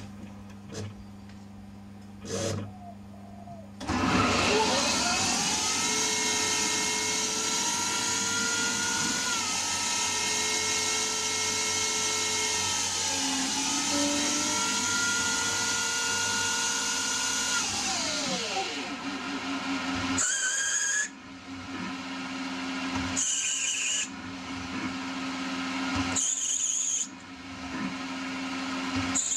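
CNC lathe machining: the machine starts suddenly with a loud multi-toned whine that holds steady, dips in pitch twice, then falls away as it winds down. A few short, high-pitched bursts follow at intervals of about three seconds.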